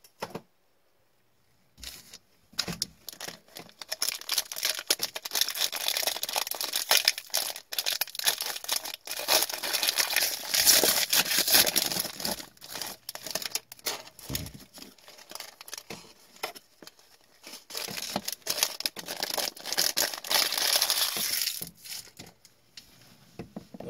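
Wrapper of a sealed 2019-20 Upper Deck Stature hockey card pack being torn open and crumpled by gloved hands: a long run of crinkling and tearing that starts about two seconds in and dies away shortly before the end.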